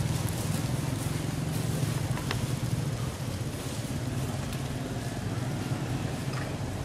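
A vehicle engine running steadily, heard as a low even hum, with a few faint clicks.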